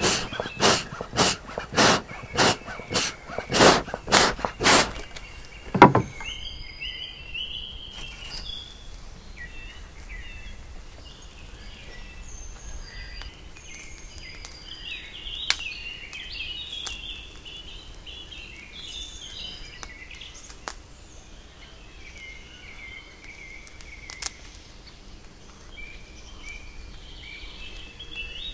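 A fast, even series of loud strokes, about two and a half a second, stops sharply about six seconds in. Songbirds then chirp and sing over quiet outdoor ambience, with a few sharp clicks.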